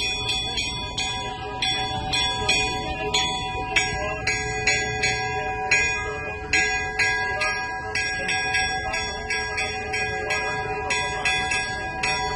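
Orthodox church bells rung rapidly in a festive peal, several bells struck about two to three times a second, with a steady held tone running underneath.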